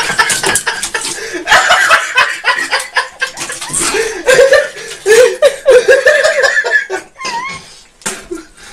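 People laughing in repeated bursts, louder through the first three-quarters and dying down near the end.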